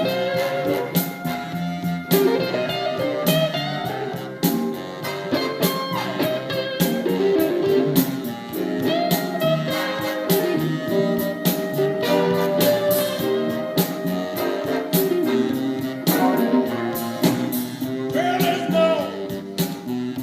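Blues recording, mostly instrumental, with a lead guitar playing bent, gliding notes over a band with a steady beat. It is played back through a Mitsubishi DA-U12 amplifier and speakers.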